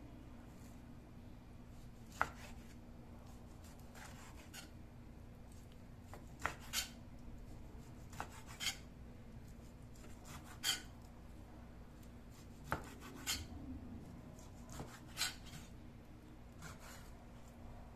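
Knife cutting food on a wooden cutting board: about a dozen separate cuts at irregular intervals, some in quick pairs, each a sharp knock with a short scrape.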